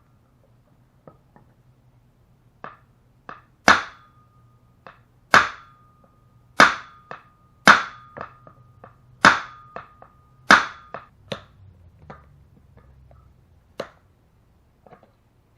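Hammer blows on a metal part: six hard strikes roughly one every second and a half, each leaving a short metallic ring, with lighter taps before, between and after them.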